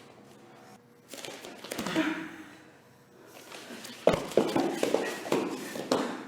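Two people sparring hand to hand: scuffling footsteps and movement, then several sharp hits in the second half mixed with short grunts and hard breaths.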